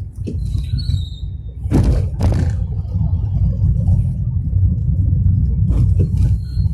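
Cabin noise inside a Tata Tiago hatchback on the move over a rough road: a steady low rumble of engine and road noise. Two sharp knocks and rattles come about two seconds in, and fainter ones near the end.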